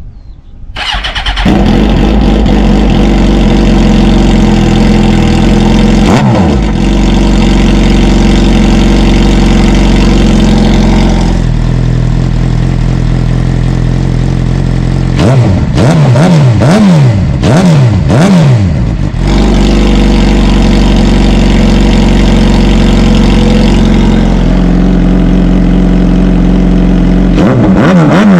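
Suzuki GSX-R750 K9 inline-four engine starting about a second in and idling, then blipped in a run of about five quick revs around halfway and revved again near the end, through an aftermarket slip-on end can.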